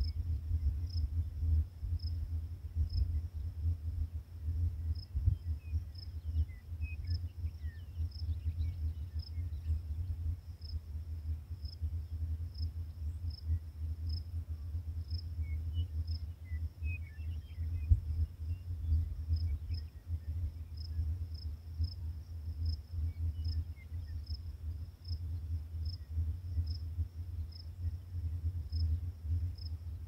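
Crickets chirping in a high, regular pulse, over a fluctuating low rumble.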